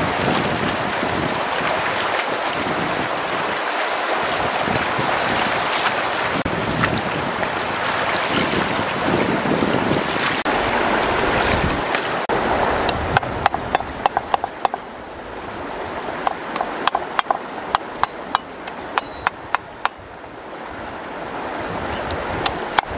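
Fast-flowing river rushing steadily. About halfway through the water sound drops and a run of sharp, irregular knocks begins, several a second: a cleaver chopping on a wooden chopping block.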